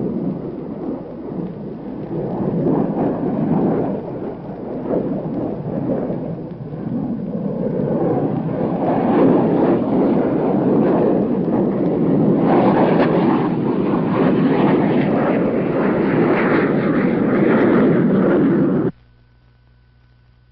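Jet fighter engine roaring continuously. It grows louder about halfway through, turns harsher soon after, and cuts off abruptly near the end.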